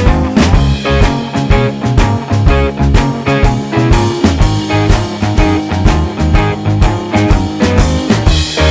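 Background music: a rock-style track with electric guitar and a steady drum beat.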